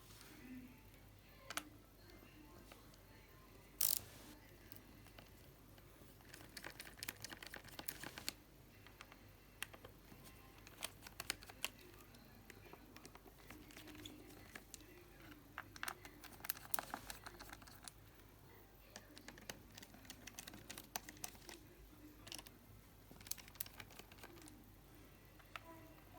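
Scattered light clicks and taps of hands working on a Lenovo ThinkPad T440s laptop, with runs of quick clicking and one sharper click about four seconds in.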